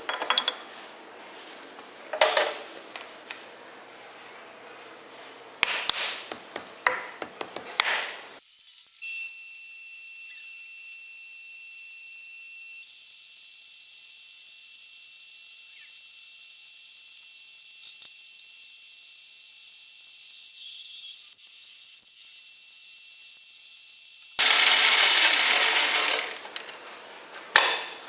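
Metal lathe work on a round steel plate: several seconds of clanking and knocking as the plate is fitted and clamped in the three-jaw chuck, then a long steady high-pitched hiss, with a thin whine for its first few seconds, as the lathe turns and a drill bit bores the centre hole. Near the end comes a louder, rougher stretch of about two seconds, then a few more knocks.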